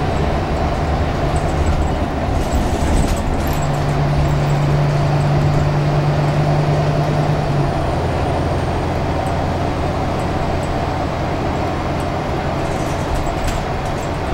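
Scania K360UA articulated bus heard from inside the passenger cabin on the move: its five-cylinder diesel engine and road noise run steadily. A strong engine hum drops away just under eight seconds in, leaving a lower drone. A few light body rattles sound around two to three seconds in and again near the end.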